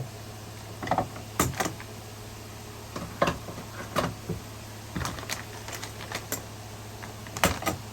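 Small hardware being handled: scattered light clicks and knocks of the gate lock's pieces and screws being put away in their packaging, at an uneven pace.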